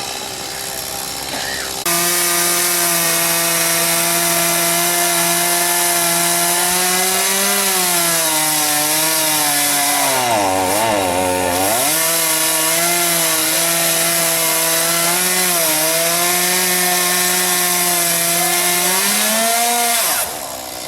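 Two-stroke chainsaw running at high revs while cutting wood. It starts suddenly about two seconds in, its pitch drops deeply as it bogs down in the cut around halfway, then climbs back, and it stops abruptly near the end.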